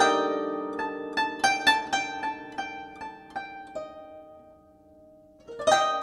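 Instrumental background music of plucked string notes, a harp-like melody of ringing notes picked a few times a second. It dies away about four seconds in, and a new phrase starts near the end.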